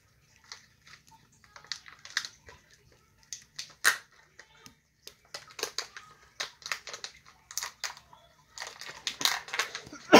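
Small plastic toy parts clicking and scraping together as a tiny figure is worked into its snap-together plastic cage ball: a scattered run of light clicks and rustles, busiest near the end.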